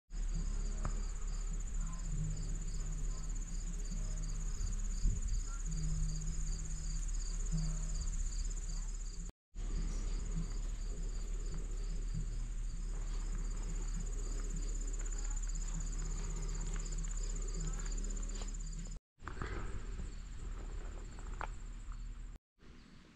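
A chorus of insects in summer woodland: a steady high-pitched drone with a softer chirp repeating about twice a second, over a steady low rumble. The sound drops out briefly at three edits.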